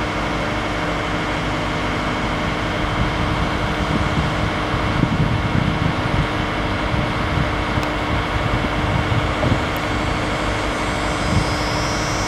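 An engine running steadily with an even hum, with a low rumble that grows in the middle and eases off towards the end.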